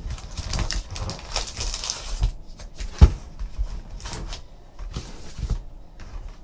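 Trading card packs rustling and sliding as they are pulled from a cardboard hobby box and stacked on a table, with scattered clicks and one sharp knock about three seconds in.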